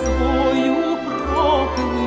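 Music: a Ukrainian folk song, a woman singing with wide vibrato over orchestral accompaniment with deep bass notes.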